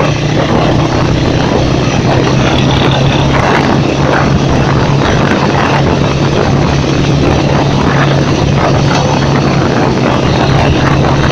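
ATV (quad bike) engine running at a steady pitch while riding along a dirt track, with a steady hiss of wind and tyre noise over it.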